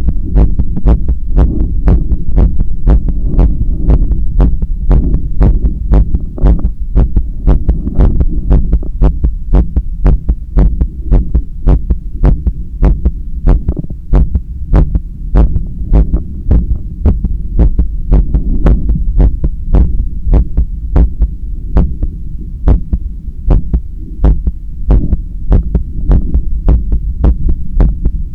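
Heartbeat heard through a stethoscope on the chest: a quick, steady train of sharp lub-dub beats, the heart working during bicep curls with a resistance band. A constant low rumble runs beneath the beats.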